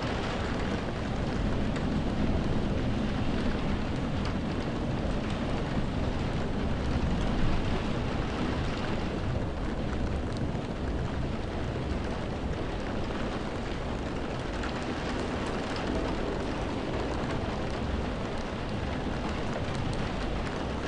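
Heavy, steady rain beating on window glass, heard from inside a room, with countless drops pattering and a low rumble that swells over the first several seconds and then eases.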